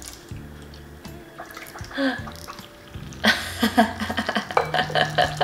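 Tea poured from a glass pitcher over a clay teapot, splashing and running off into a wooden tea tray. From about three seconds in, a woman laughs.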